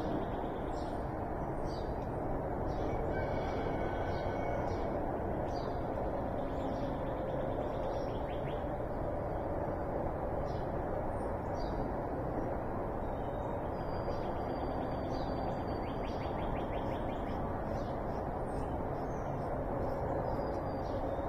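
Morning birdsong: several birds giving short, high calls and chirps scattered throughout, over a steady low background noise.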